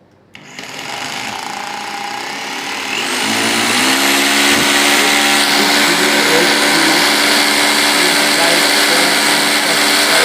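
DeWalt D25133 rotary hammer drill switched on and running under power from its newly fitted armature and field coil. It starts suddenly about half a second in, climbs in speed and pitch about three seconds in, and then runs steadily with a high whine. The repaired motor is working.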